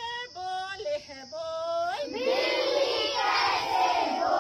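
A woman sings short chanted lines of an animal-sounds song, ending on a rising note. About two seconds in, a group of children answer together in a loud chorus.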